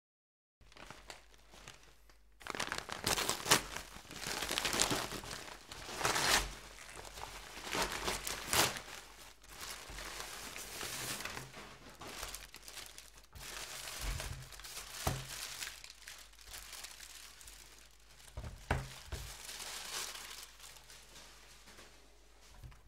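Brown packing paper crinkling and rustling in irregular bursts as a parcel is unwrapped by hand, starting a couple of seconds in, with a few soft knocks as the packaged items are handled on a wooden table.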